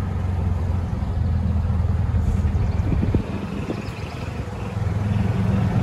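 Golf cart running along a rough lane with a steady low hum. The hum drops away about three seconds in, a few light knocks and rattles come through, and it picks up again near the end.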